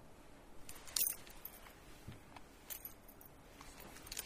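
Faint scattered clicks and rustles of handling, with sharper clicks about a second in and near the end, while the presentation screen is being got working again.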